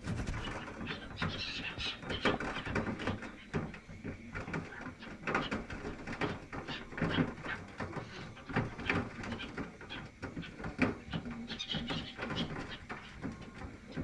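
Feral pigeons and black-headed gulls feeding on crumbs on a ledge right at the microphone: a busy, irregular run of beak taps and wing flutters, with bird calls now and then.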